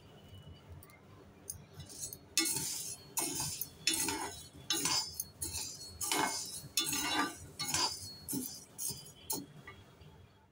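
A perforated steel ladle stirs skinned urad dal as it dry-roasts in a black kadai. Quick repeated strokes set the grains rattling and clinking against the metal, starting about two seconds in. The roasting is light, only until the dal is warm.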